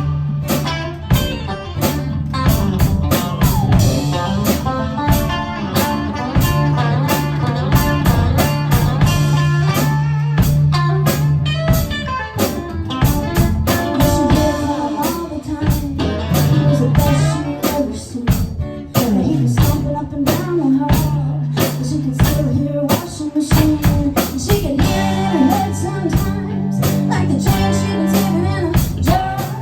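Live band playing an instrumental break in a bluesy song: guitar over a steady beat and held low notes.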